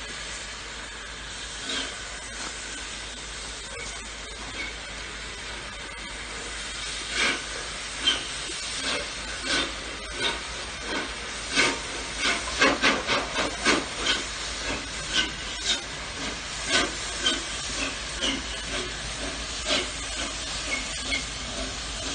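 Steam locomotive hauling a train of coaches past: a steady hiss of steam, with a run of irregular sharp clicks and knocks from about seven seconds in, thickest around twelve to fourteen seconds.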